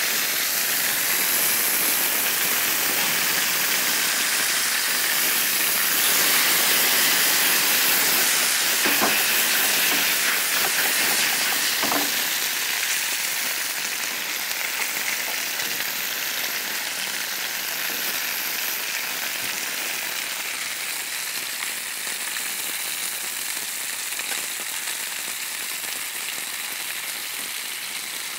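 Glazed chicken drumsticks sizzling in oil in a grill pan over a gas burner. A steady high hiss eases off slowly over the second half, with a couple of faint pops near the middle.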